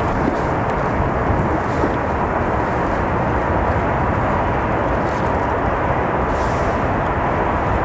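Airbus A380's four jet engines running as the airliner rolls along the runway: a steady, loud rush of engine noise with a faint steady whine.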